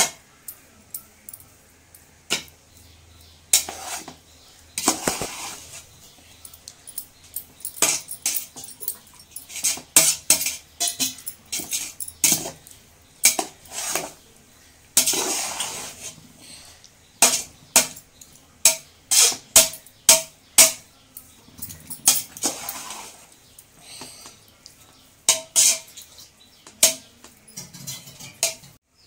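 Metal spatula clanking and scraping against a large metal pot while stirring and tossing a big batch of vegetable fried rice: many irregular sharp clinks, with a few longer scrapes.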